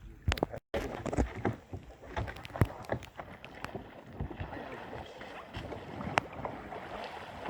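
Water splashing and sloshing around a kayak, with many irregular sharp splashes.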